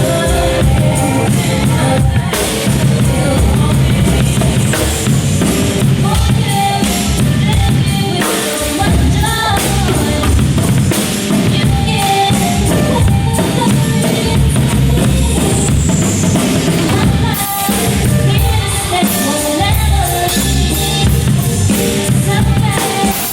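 Drum kit played through a Simmons monitor speaker, with steady kick and snare hits, along with a recorded song that has singing.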